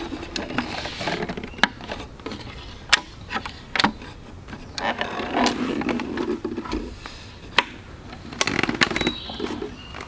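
Slatted walnut-and-oak wooden folding table being unfolded and set up: a string of sharp wooden clacks and knocks, with rustling and scraping between them.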